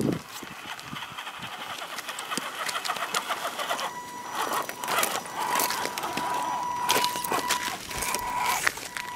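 Radio-controlled scale rock crawler working over gravel and rock: crunching and clicking of tyres on loose stones, joined about four seconds in by the steady high whine of its small electric motor and gears.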